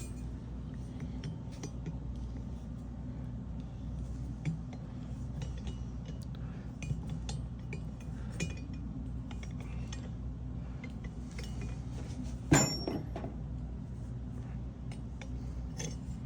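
Small metal clicks and clinks of tools working a helicoil thread insert into the threaded compression-release hole of a Harley-Davidson M8 cylinder head, with one sharper ringing metal clink about twelve seconds in. A steady low hum runs underneath.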